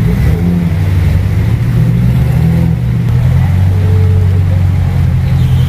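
Off-road vehicle's engine running loud and low, rising and falling in pitch over the first few seconds, then holding steady.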